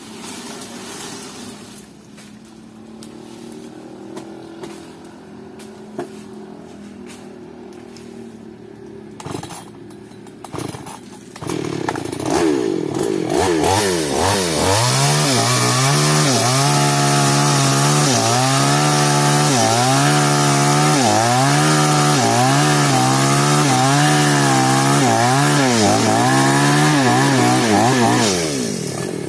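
New West two-stroke chainsaw running quietly at idle with a few knocks, then revved hard about twelve seconds in. It runs at full throttle cutting into a sengon trunk, its pitch dipping and recovering again and again under the load of the cut, and drops back near the end.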